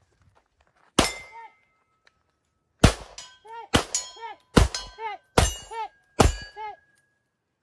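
Rifle fired six times: one shot, a pause, then five shots in quick succession under a second apart. Each shot is followed by a brief ringing tail.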